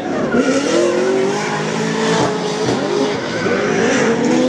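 Drift cars sliding through a corner: engines revving up and down with tyre squeal from the sliding tyres, several cars in turn.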